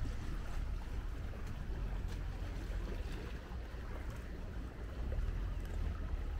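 Wind rumbling steadily on the microphone, over an even hiss of breeze and water.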